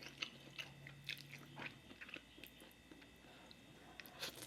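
Faint chewing and mouth sounds of a person eating, with small scattered clicks, most in the first two seconds.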